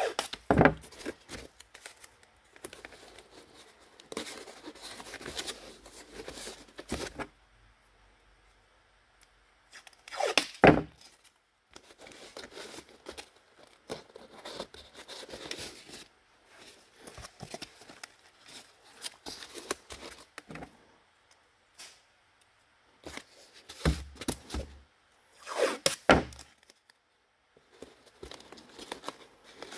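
Blue painter's tape being pulled off the roll and torn, and strips pressed onto a cardboard mock-up, with cardboard rustling and a few sharp knocks.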